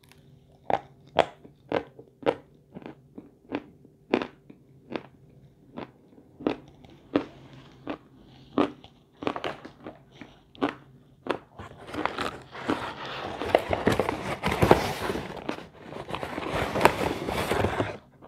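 Crisp crunching bites into hard lumps of edible chalk, sharp and separate, about two a second. From about twelve seconds in, a paper bag crinkles and rustles loudly for several seconds over more crunching.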